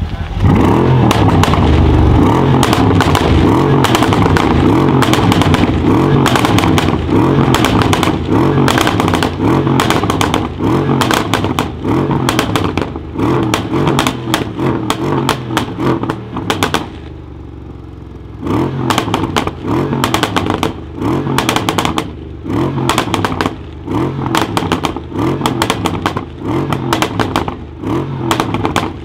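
Remapped Mercedes CLS63 AMG twin-turbo 5.5-litre V8 revved hard over and over, its exhaust popping and crackling on each lift-off. After a short drop back to idle past the middle, it is blipped in quick revs about once a second.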